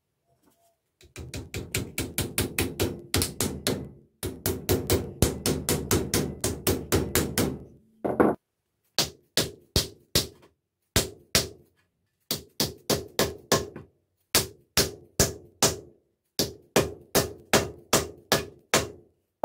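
A mallet knocking a wooden wedge into the eye of a splitting maul to fix the head onto its wooden handle. First comes a fast run of rapid taps. After a brief pause, separate, firmer blows follow in short groups of two to five.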